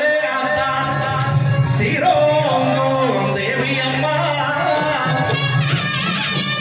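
Live Tamil folk song: a man singing into a microphone over a band with drums and keyboard, through the stage sound system.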